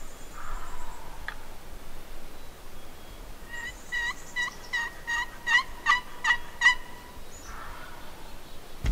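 A turkey yelping: a run of about a dozen evenly spaced yelps, roughly three a second, starting a few seconds in and lasting about three seconds.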